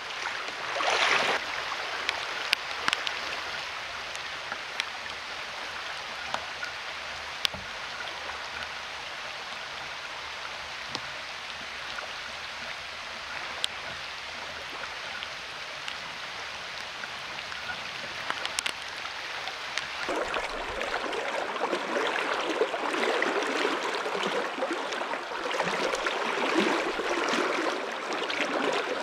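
River current flowing steadily while rain falls on the water, with a few sharp ticks of drops close by. About twenty seconds in it turns to a louder, rougher rush of fast water heard close up.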